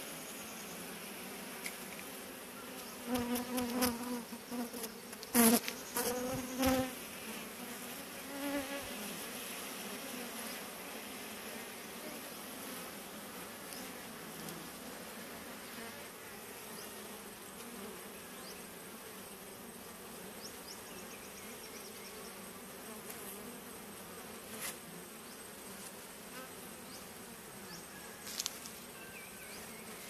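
Honeybee swarm humming steadily around its cluster. Between about three and seven seconds in, and once more shortly after, individual bees buzz loudly close by. A few short clicks or taps are heard, one near the start of the loud buzzing and two near the end.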